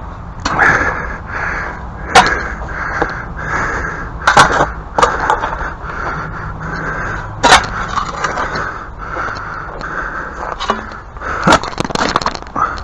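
Hand tool working at a tree root in the dirt under a step: repeated scraping strokes, broken by several sharp knocks.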